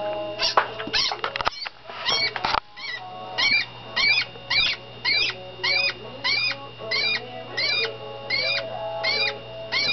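White rat squeaking in distress as a boa constrictor coils around it. From about three seconds in, short arched squeaks come in a steady rhythm of about two a second.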